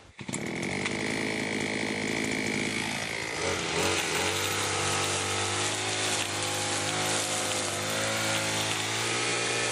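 Limex Expert BT 524BA brush cutter's two-stroke engine running after a starter-ratchet replacement, its speed dropping about three seconds in and then holding steady at idle.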